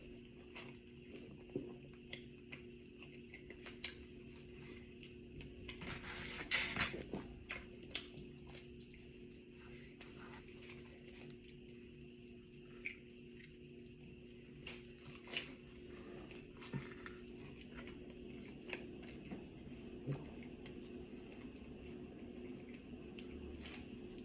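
A person eating pizza close to the microphone: chewing and mouth noises with scattered small clicks and crisp bites, busiest about six to seven seconds in, over a faint steady hum.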